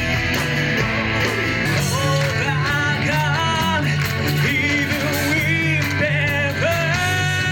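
Rock band playing: guitars and drums, with a voice singing a wavering melody from about two seconds in.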